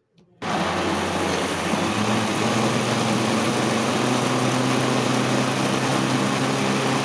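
Electric jug blender switched on, starting suddenly about half a second in and running steadily at full speed, blending chunks of apple, peach and mango in milk. Its motor hum rises slightly in pitch over the first two seconds, then holds steady.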